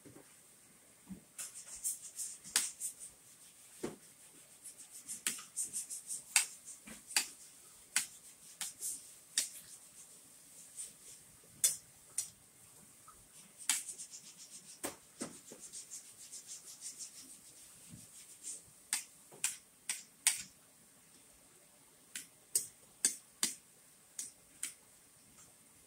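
Close-up eating sounds: sharp mouth clicks and smacks while chewing, mixed with a spoon and fork clicking against a ceramic plate. The clicks come irregularly, some singly and some in quick runs.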